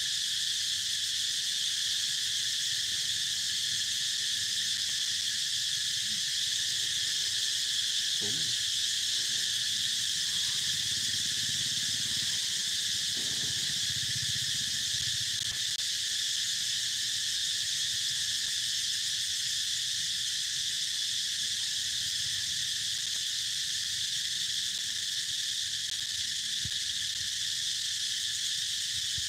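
Steady, unbroken insect chorus, a high shrill hiss that holds at one level throughout.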